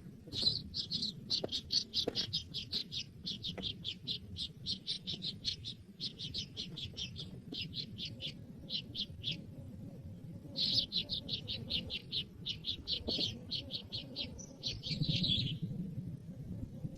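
A bird chirping in rapid runs of high, evenly spaced notes, about seven a second, broken by short pauses.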